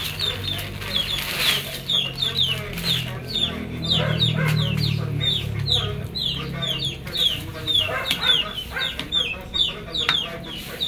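Chickens calling in the background: many short, high, downward chirps, several a second, over a low rumble that fades about seven seconds in.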